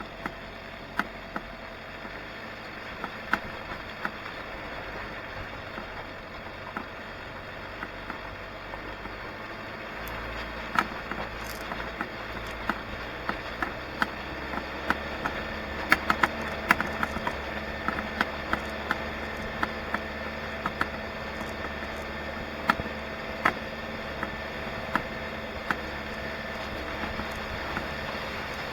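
Vehicle engine running steadily, with a deeper rumble coming in about ten seconds in. Many short sharp clicks and knocks sound over it throughout.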